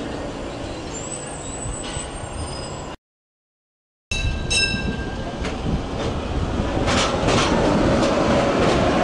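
Vintage 1960s Gothenburg tram (M28/M29 type) rolling past with a steady rail rumble. The sound cuts out for about a second. Then another pulls away and passes close, with a short ringing tone, two wheel clacks over the rails and a rising motor whine as it speeds up.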